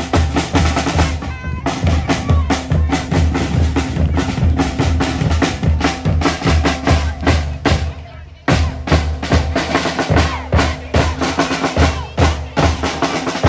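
School band drumline playing in the stands: bass drums and snare drums beating a steady, busy rhythm, with a short break about eight seconds in before it starts again.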